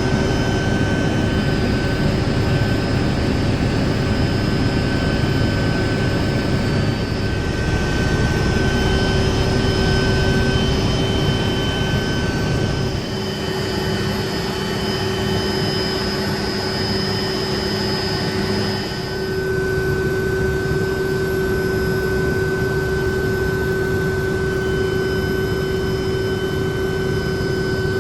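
Helicopter in flight, heard from inside the cabin: a steady low rumble of turbine and rotor noise with constant high whining tones over it.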